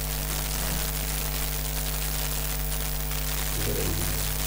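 Steady electrical hiss and mains hum in the recording, with a short faint murmur of a voice near the end.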